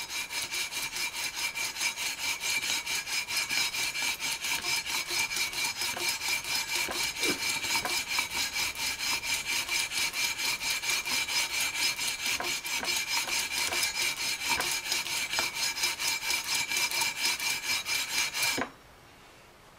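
Sandpaper on a long metal levelling beam rubbed quickly back and forth across the tops of EVO gold guitar frets, about three to four strokes a second, then stopping abruptly near the end. The 320-grit paper is grinding down the high frets to level them.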